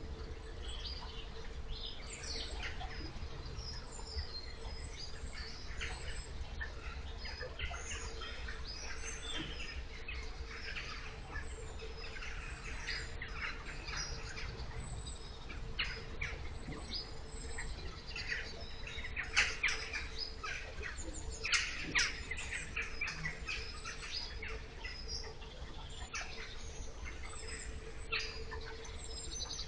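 Water churned by an electric narrowboat's propeller, gurgling and splashing in short chirp-like bursts, with a faint steady hum and low rumble beneath. The electric drive adds no engine noise.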